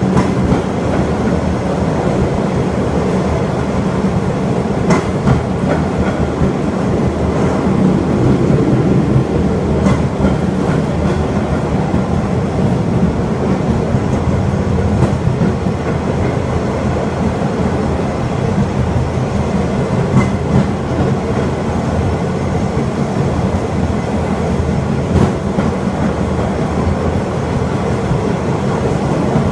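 Takachiho Amaterasu Railway tourist rail cart running steadily along the track, with a dense rumble and now and then the click of wheels over rail joints.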